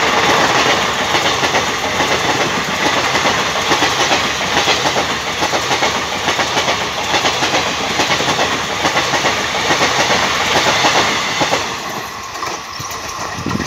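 Indian Railways passenger coaches rushing past at speed close by, with a continuous rattle and clickety-clack of wheels over the rails. The sound drops and becomes quieter about twelve seconds in.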